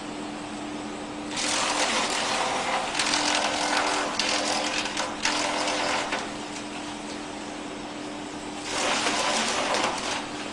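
Disc wood chipper running with a steady hum, broken by two spells of loud chipping noise: one about four seconds long starting a second and a half in, and a shorter one near the end.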